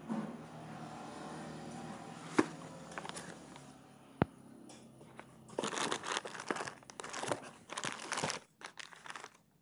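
Plastic wrapping crinkling and cardboard carton flaps being handled while a packaged part is unpacked. There are two sharp clicks in the first half, then the crinkling comes in dense bursts from about halfway through.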